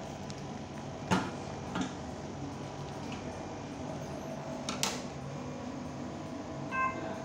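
Steady room hum with a few sharp knocks and rustles from papers and objects being handled on a table. The loudest knocks come about a second in and just before five seconds, and a brief high tone sounds near the end.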